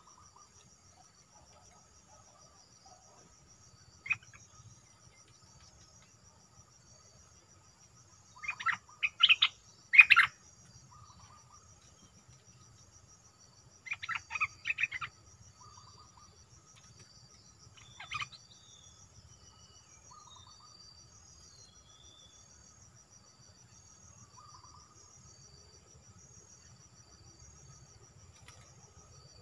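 A bulbul calls in short loud clusters of several quick notes, with the loudest bursts about a third of the way in and a single call a little later. A steady high-pitched cricket trill runs underneath.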